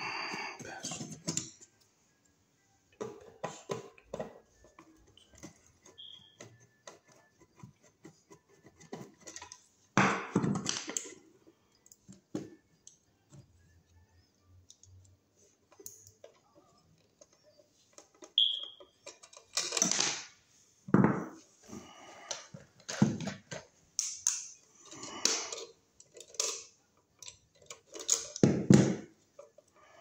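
Hand-tool handling noise: clicks, scrapes and knocks of a screwdriver and hands working a burned-up wall receptacle out of a metal electrical box and handling its wires, in irregular bursts with quiet gaps. Two brief high squeaks, one about six seconds in and one a little past eighteen seconds.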